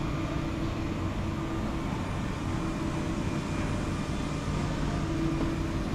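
Steady urban street background: a constant low mechanical drone with a faint steady hum, like distant traffic and building machinery.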